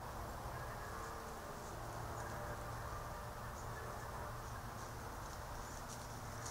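Faint, high insect chirps repeating irregularly over the steady hiss of a trail camera's microphone.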